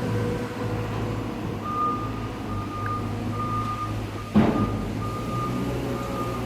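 A vehicle's reversing alarm beeping steadily, about one and a half beeps a second, over the steady hum of its engine running. A single loud clunk about four seconds in.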